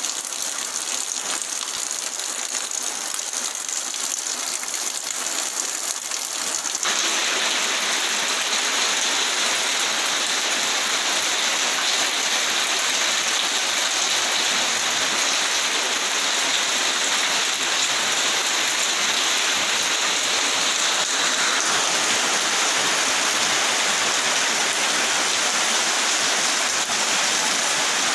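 Heavy rain falling steadily, a little louder from about seven seconds in.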